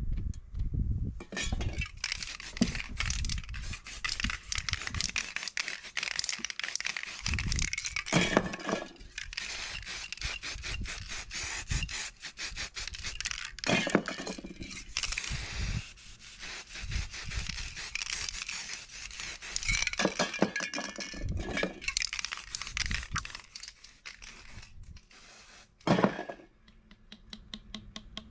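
Spray-paint art being made: aerosol spray cans hissing in bursts, mixed with scraping and rubbing on the painted board and many small handling clicks and knocks.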